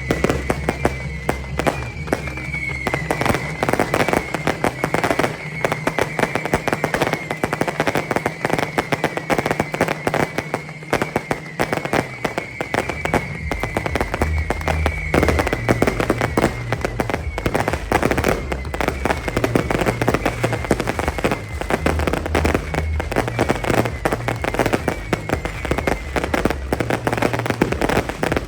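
A fireworks display going off in a dense, unbroken run of bangs and crackles, with music playing underneath.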